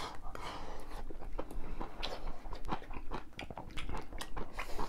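People eating at the table: close chewing and mouth smacking, a string of short, irregular wet clicks, with a brief slurp from a bowl held to the mouth near the start.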